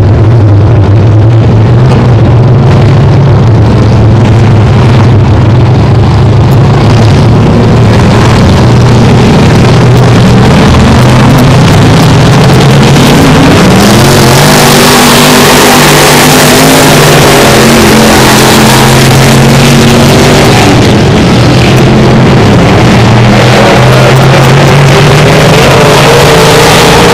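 Dirt-track stock cars' engines running hard around the oval, so loud that the recording distorts. The engines get louder and fuller about halfway through as a group of cars passes close by, then drop back as they move off around the track.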